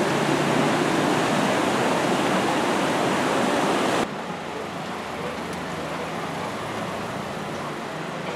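Loud, steady rushing of a flooded river pouring over a road. About four seconds in it drops suddenly to a quieter, more distant rush of floodwater.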